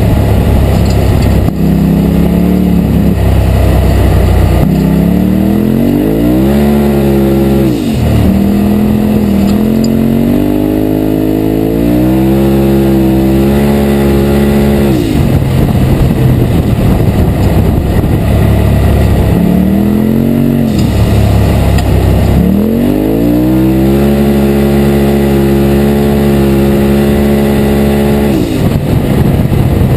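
2017 Polaris RZR Turbo's turbocharged twin-cylinder engine running under throttle, its pitch rising through four pulls and dropping sharply each time the throttle is lifted, the last pull held for several seconds before letting off near the end.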